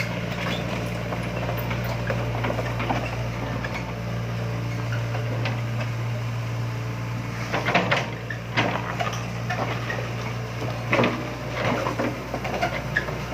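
Hitachi hydraulic excavator's diesel engine running steadily while it digs, with a run of metallic clanks and knocks from the working arm and bucket in the second half.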